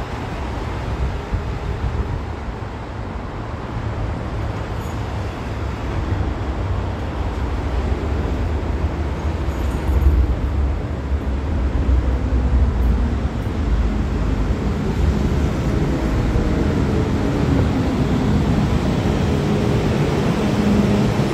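MTR M-Train electric multiple unit pulling out of the platform and gathering speed. The low rumble of wheels and running gear grows steadily louder, and a motor hum rises in the last few seconds.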